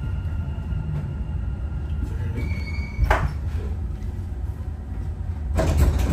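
Dubai Metro train carriage with a steady low rumble, a sharp clunk about three seconds in, and a louder clatter near the end.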